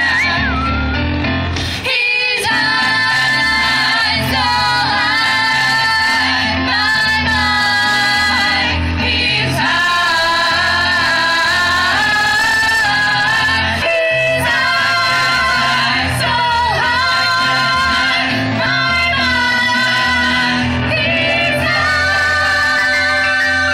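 A mixed vocal group singing in harmony into handheld microphones, amplified through PA speakers, with women's voices carrying the top lines over a steady low part. The sound breaks off briefly about two seconds in.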